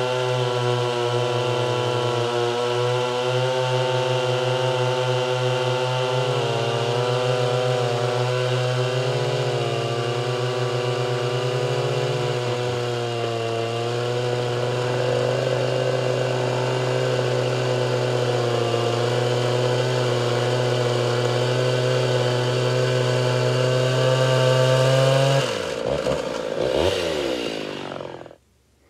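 Gasoline chainsaws at full throttle, chains cutting through a round of very dry, hard firewood: one chain freshly sharpened, the other run about two tanks of gas since sharpening. About three seconds before the end the engine note slides down and the sound falls away.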